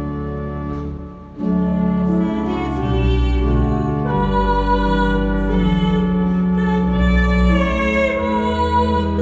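Church music: held chords with singing, moving from chord to chord every second or two, with a brief drop in level about a second in.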